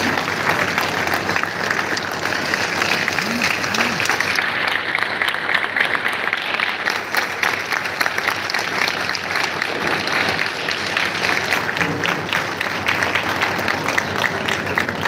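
Audience applauding, many hands clapping at once in a dense, even patter.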